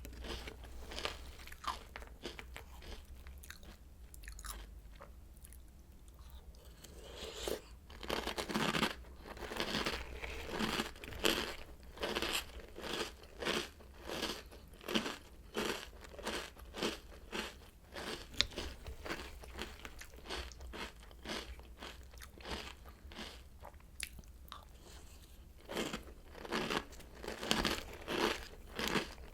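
Oreo O's cereal being chewed, a steady run of crisp crunches at about two a second, easing off for a few seconds early on and again about two-thirds of the way through.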